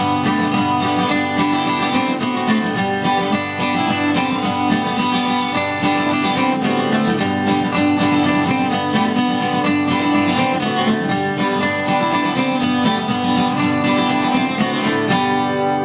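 Instrumental music with strummed acoustic guitar in a quick, steady rhythm, ending near the end on a held chord that rings out and fades.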